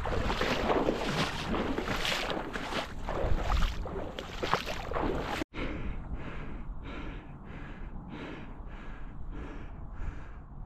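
Shallow marsh water sloshing and splashing around someone moving through it, with wind on the microphone. After a sudden cut about halfway, soft swishes follow at a steady rhythm of about two a second.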